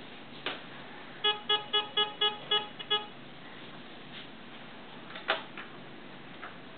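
Metal detector's target tone responding to a dime passed over the coil: about seven short beeps of one pitch, roughly four a second, starting about a second in. A sharp click comes just before the beeps and another past the middle.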